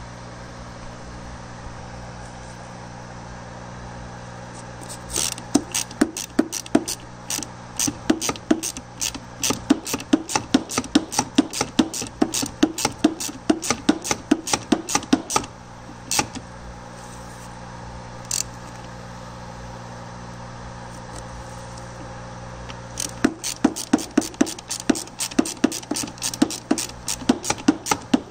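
Hand ratchet clicking in quick runs as a socket turns bolts on a transmission case: the clicking starts about five seconds in and runs for roughly ten seconds, then stops after a couple of single clicks, and starts again about 23 seconds in. A steady low hum lies underneath.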